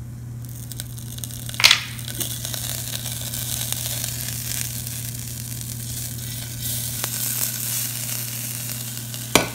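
Butter melting and sizzling in a small stainless steel saucepan of warm oil as the pan is swirled, with a sharp knock about a second and a half in and another near the end.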